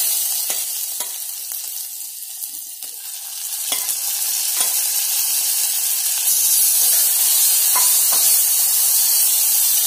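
Spices sizzling in hot ghee in a stainless steel pot, stirred with a steel spoon that gives a few light metal clicks and scrapes against the pot. The sizzle eases off about two seconds in, then grows louder again from about four seconds as mashed cooked horse gram goes into the hot tempering.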